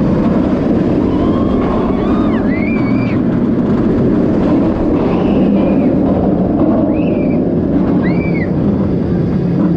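Montu's inverted steel roller coaster train running at speed, a loud steady rush of wind over the onboard camera and the rumble of the train on the track. A few short high-pitched glides rise and fall over it.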